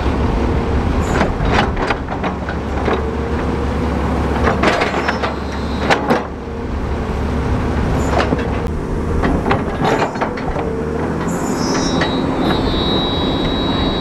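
Large crawler bulldozer's diesel engine running steadily, with repeated metallic clanks and squeaks from its steel tracks and blade. A thin high whine comes in near the end.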